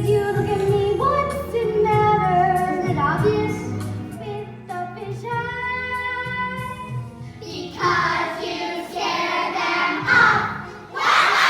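Stage-musical number: children singing over a musical accompaniment, with one long held note about five seconds in. From about eight seconds a noisy mass of many voices comes in over the music.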